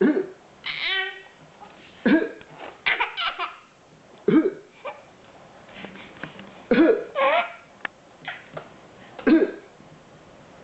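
An adult coughs every couple of seconds and an eight-month-old baby answers with bursts of laughter after the coughs.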